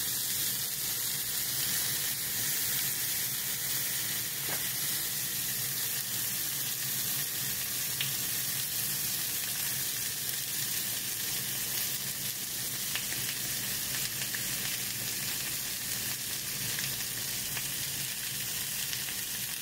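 Bone-in beef rib pieces searing in hot oil in a frying pan: a steady sizzle with a few faint ticks scattered through.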